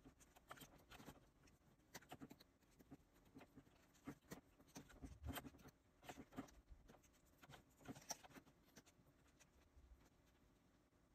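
Faint, irregular clicks and taps of a stylus working on a Cintiq pen-display screen, mixed with the clacks of keyboard shortcut keys.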